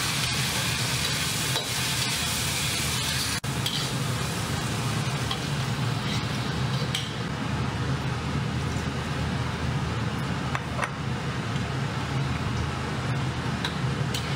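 Pork belly sizzling in a wok as it is stirred and turned with a metal ladle, with a few light taps of the ladle against the pan and a steady low hum underneath. The sound cuts out abruptly for an instant about three and a half seconds in, and after it the sizzle is softer.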